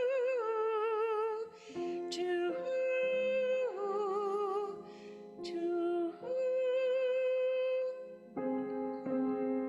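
A woman singing long held notes with vibrato over piano accompaniment, the owl's cry in a song about an owl. Near the end the voice stops and the piano plays chords alone.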